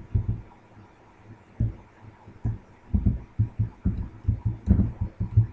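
Computer keyboard being typed on, heard as irregular dull low thumps as the password is deleted and retyped.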